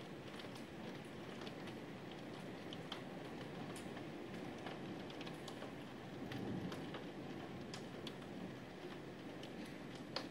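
Steady rain hiss with irregular drops ticking sharply on a hard surface close by. A soft low rumble swells briefly about six seconds in.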